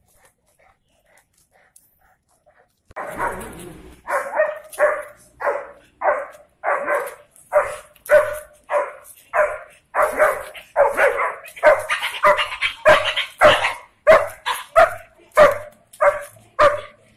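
Young German Shepherd barking over and over, about one and a half barks a second, starting about three seconds in after a quiet start. It is worked up at the sight of other dogs.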